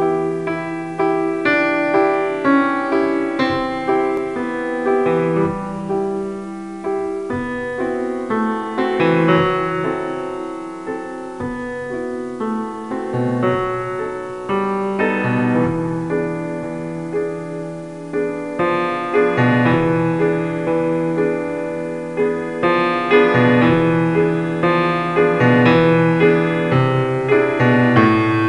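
Background piano music: a steady stream of melody notes over lower held notes.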